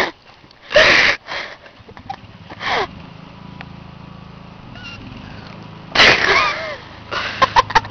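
A person's breathy, wheezing vocal outbursts without words, coming several times. A faint, steady low hum sits underneath in the quieter middle stretch.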